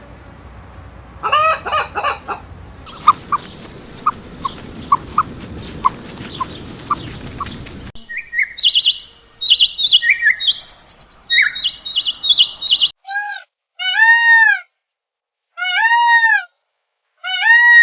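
A run of separate bird recordings: a chicken clucking near the start, then short peeps evenly spaced over a background hiss, then a small songbird's quick, varied chirping, and finally loud, clear arching calls repeated about every second and a half.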